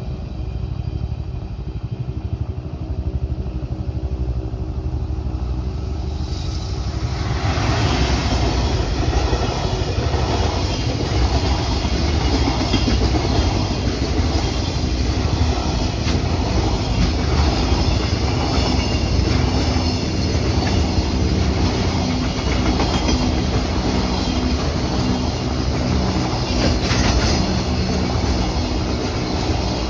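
Train passing close by: a low rumble at first, then about seven seconds in the wheel noise jumps much louder and carries on as a long train rolls past, with a rhythmic clickety-clack of wheels over the rail joints.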